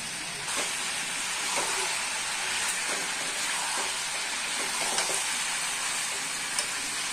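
Chicken pieces with spice powders sizzling in hot oil in a metal pan while being stirred, with a few light clicks of the spoon against the pan. The sizzle gets a little louder about half a second in.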